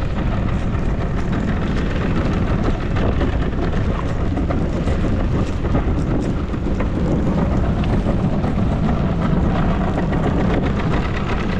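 Strong sea wind buffeting the microphone on a small open fishing boat, a steady rushing noise.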